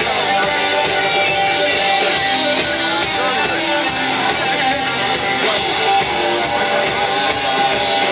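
Live rock band playing through an outdoor PA: electric guitar over drums with a steady beat.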